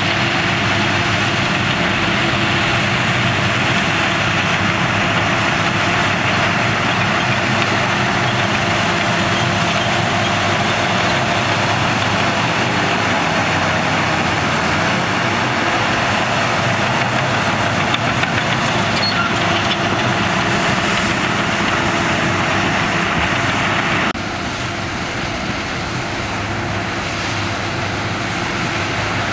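Bulldozer's diesel engine running steadily under work, loud and continuous, with a sudden drop to a quieter, duller engine sound near the end.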